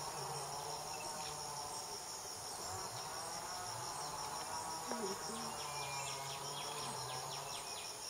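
Rainforest insect chorus: a steady, fast-pulsing high buzz that goes on throughout, with a short run of rapid clicks about two-thirds of the way in.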